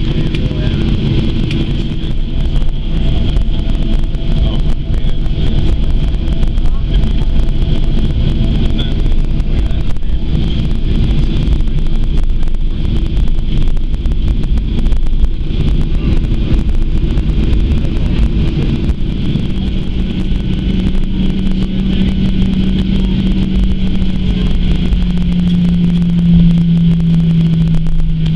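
Cabin noise inside a Boeing 737-800 taxiing after landing: a steady rumble and hiss from the CFM56 engines at taxi power. About two-thirds of the way through a strong low hum comes in and sinks slightly in pitch near the end.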